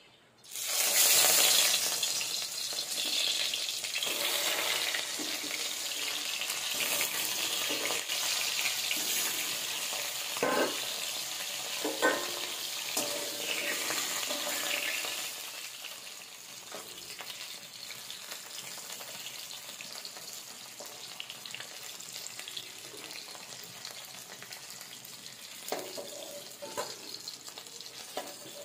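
Koi fish (climbing perch) rubbed with salt and turmeric going into hot oil in an aluminium kadai: a sudden loud sizzle as they hit the oil, then steady frying that quietens about halfway through. A few sharp knocks and scrapes of a metal spatula against the pan.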